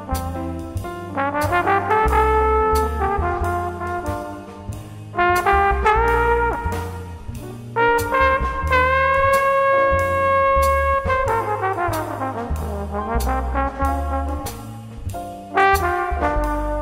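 Jazz ballad instrumental break: a horn solo over double bass and drums, with one long held note about halfway through.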